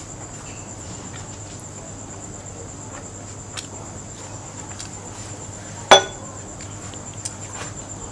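Steady high, pulsing chirring of crickets throughout, with a few soft clicks of eating. About six seconds in, chopsticks strike the metal tray with one sharp, ringing clink.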